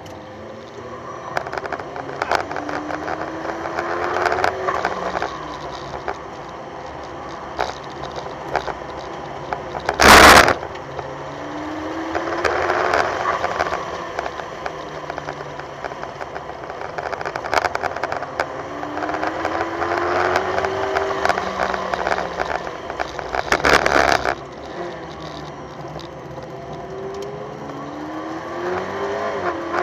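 McLaren P1's twin-turbo V8 heard from inside the cabin at speed, pulling up through the revs four times with drops in between, over a constant rattle and crackle on the microphone. Two short, loud bursts of noise break in, about ten seconds in and again about fourteen seconds later.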